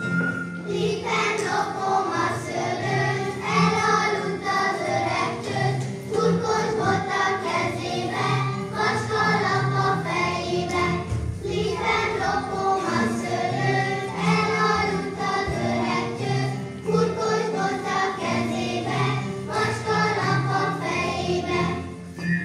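Choir singing with organ accompaniment, the sustained low organ notes held under the voices.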